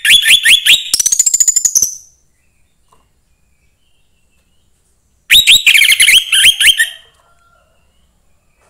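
Young wild orange-headed thrush singing two loud phrases of quick whistled notes, each about two seconds long and about three seconds apart; the first ends in a fast run of notes rising in pitch.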